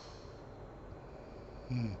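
A sleeping woman breathing softly, an airy hiss, then near the end a short, loud, low snore that drops in pitch.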